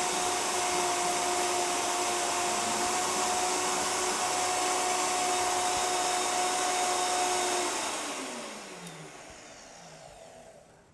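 High-powered countertop blender running at full speed on thick cashew cream, with a tamper pushed down through the lid to keep it turning over, a steady whine over a loud rush. About eight seconds in it is switched off and the motor winds down, its pitch falling as it fades out.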